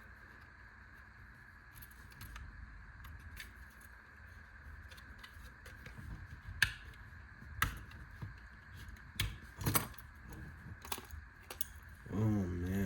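Small metal hand tools and their packaging being handled on a desk: scattered light clicks and clinks, the sharpest about a third of the way through. Near the end a man's voice makes a short wordless sound.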